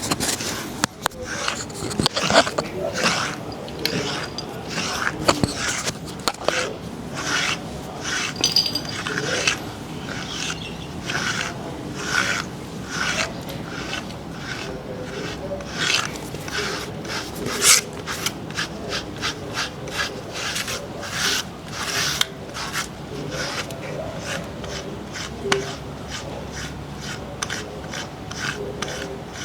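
A cat's fur being brushed: repeated rasping brush strokes, a few per second, and quicker in the second half.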